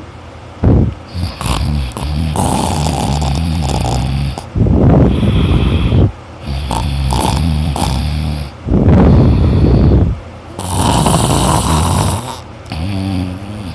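A person snoring loudly in repeated breath cycles: each is a longer, rattling, low buzzing snore followed by a short, harsher and louder burst, about three cycles in all.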